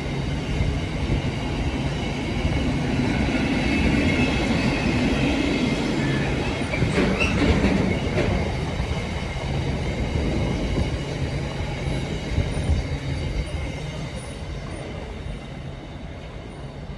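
Freight train wagons rolling past on the rails, a continuous rumble with wheel squeal. It is loudest about seven to eight seconds in, then fades as the train draws away.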